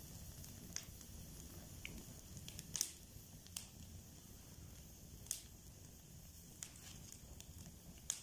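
Wood fire crackling: a low steady rush with scattered sharp pops, the loudest about three seconds in.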